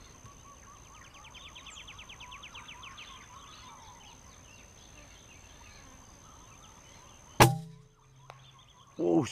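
A single sharp rifle shot about seven seconds in, over faint outdoor birds and insects, including a rapid ticking trill early on.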